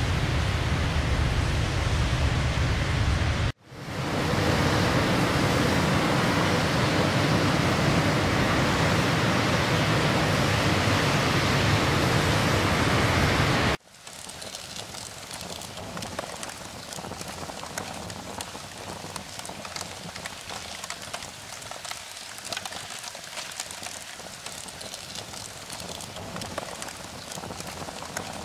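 Water sound effects in three cut-together takes: a steady low rush of water, then a louder, brighter steady rush of running water, and from about halfway a quieter patter of many small water drops.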